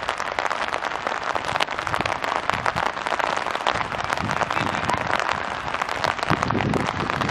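Steady rain pattering, a dense crackle of many small drops.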